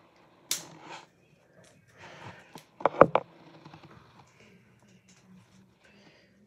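Handling noise from a phone held in one hand: rustling and fumbling, with a quick cluster of sharp clicks and knocks about three seconds in, then faint scattered ticks.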